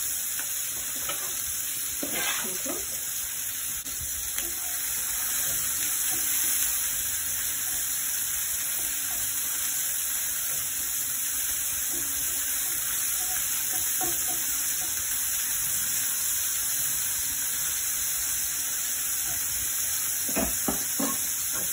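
Sliced mushrooms sizzling steadily as they fry in oil in a nonstick pan, stirred now and then with a wooden spatula.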